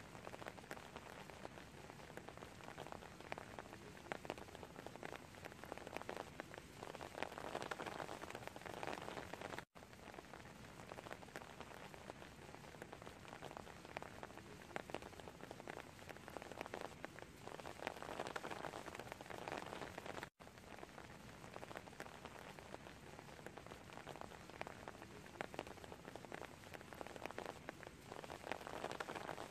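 Steady rain falling on wet stone paving, a dense patter of individual drops. The sound cuts out for an instant twice.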